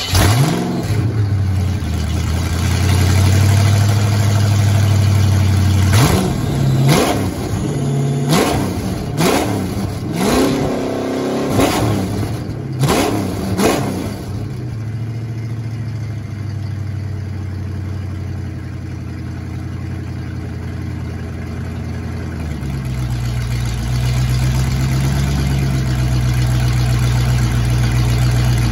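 Fox-body Mustang engine running with the mufflers off, its exhaust open at the pipes. It idles, is revved in a quick series of about eight blips, then settles back to a steady idle that gets a little louder near the end.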